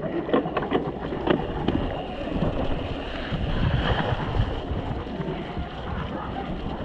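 Mountain bike ridden over a muddy, rutted dirt trail: tyres rumbling through wet mud, the bike rattling and knocking over bumps, mostly in the first couple of seconds. Wind buffets the chest-mounted camera microphone.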